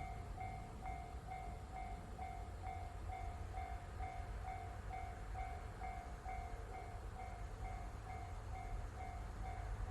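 Japanese level crossing's electronic warning bell ringing, about two strokes a second, over a low steady rumble.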